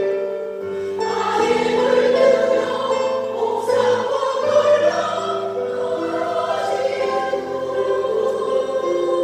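A choir of senior citizens singing, holding long notes that change pitch every second or so.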